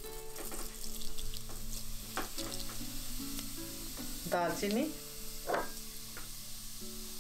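Cumin seeds sizzling in hot oil in a cooking pot, a steady frying hiss, with a few faint clicks.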